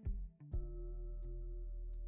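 Background music: two drum hits in the first half second, then a held chord over a steady bass.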